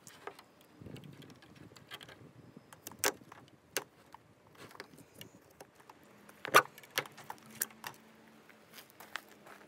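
Irregular sharp clicks and taps of zip ties being handled and fastened on a plastic wheelbarrow, the loudest about six and a half seconds in. A faint steady hum starts about six seconds in.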